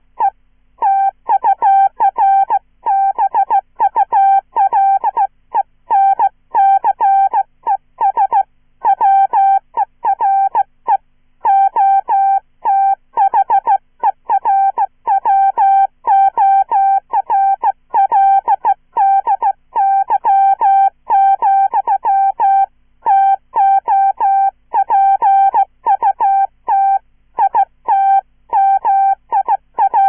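Morse code sent by hand on a Czech straight key at about 15 words per minute: a synthesized, chirpy single-pitch tone switching on and off in dits and dahs, with short gaps between letters and longer ones between words.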